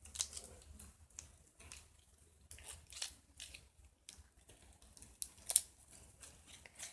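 Slime being squeezed and pulled out of a cut-open rubber balloon by hand: scattered soft sticky squelches and crackles of the rubber, the loudest about five and a half seconds in.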